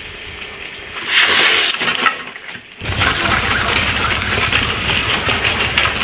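A person snorting a line of powder through a straw: one sharp, hissing sniff lasting about a second. A little before three seconds a loud, harsh rushing noise starts abruptly and carries on.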